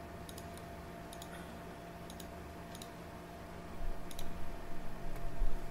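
Computer mouse button clicking about half a dozen times, several clicks heard as quick press-and-release pairs, over a faint steady hum. About two-thirds of the way in, a low rumble rises under the clicks.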